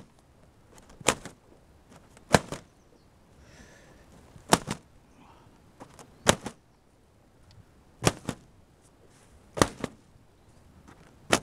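Tube-type hole punch pushed through the plastic film of a sealed tunnel row cover, each puncture a sharp snap. Seven snaps, roughly one every one and a half to two seconds, some doubled.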